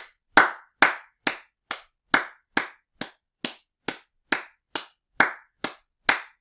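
Slow, steady hand clapping: single sharp claps, evenly spaced at about two a second, stopping near the end.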